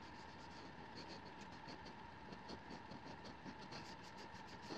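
Faint, quick scratching of a finger rubbed over the diamond-coated tip of a Kobalt No. 1 Phillips screwdriver, about three or four rasps a second: the rough grit of the diamond coating.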